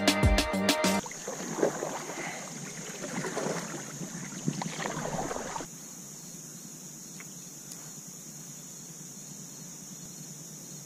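Background music cuts off about a second in. Then a plastic kayak pushes off from a weedy bank, with rustling plants, paddle strokes and water splashes. About halfway through these stop abruptly, leaving a steady high chirring of insects over quiet water.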